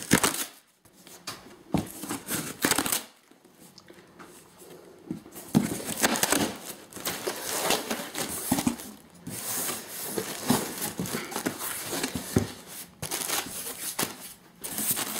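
Cardboard shipping box being torn open by hand: irregular ripping and scraping of cardboard and tape, with plastic bubble-wrap packing rustling, and a short pause about three seconds in.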